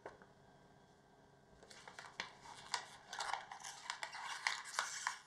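Close, dense crinkling and crackling, many small sharp cracks in quick succession, starting about a second and a half in and growing louder.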